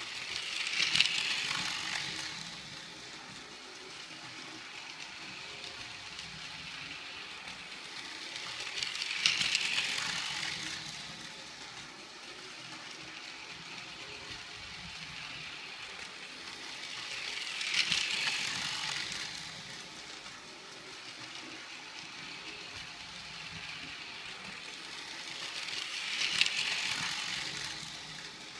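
Battery-operated toy train's small motor whirring and its wheels clattering on plastic track as it laps an oval. The sound swells four times, about every eight and a half seconds, as the train passes close by, with a sharp click at the loudest point each time.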